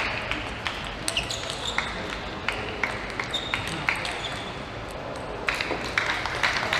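Table tennis ball bouncing, sharp irregular ticks of the plastic ball on the table and racket as the players ready to serve, over low arena background noise; a broad crowd hiss swells in about five and a half seconds in.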